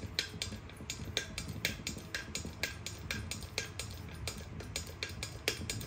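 Air-hydraulic bottle jack (15-ton) running on compressed air and lifting slowly: its pneumatic pump ticks in a steady rapid rhythm of about five clicks a second over a low hum.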